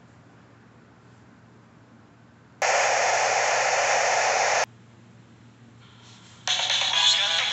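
A burst of loud, even TV-static hiss, starting suddenly about two and a half seconds in and cutting off sharply two seconds later. About two seconds after it stops, music with singing starts playing from a phone.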